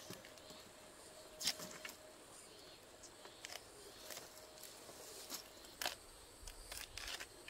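Irregular sharp cracks and snaps of bark being peeled and torn from a woody stem, about a dozen in all, the loudest about one and a half seconds in and a quick cluster near the end.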